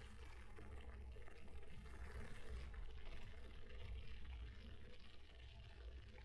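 Faint, uneven low rumble of wind on the microphone mixed with tyre and rolling noise from an electric mountain bike on the move, with a light hiss above it.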